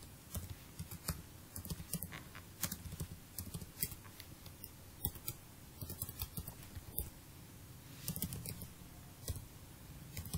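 Computer keyboard typing: irregular keystroke clicks in short runs with brief pauses between them.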